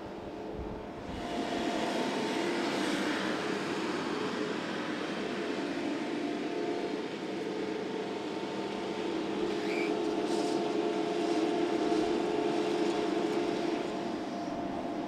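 Jacobsen Fairway 305 ride-on reel mower running: a steady engine drone with several held tones, growing louder about a second in and then holding steady.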